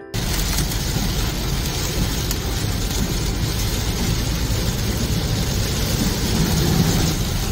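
Heavy rain falling on a car's windshield and roof, heard from inside the cabin over the car's steady road and engine noise.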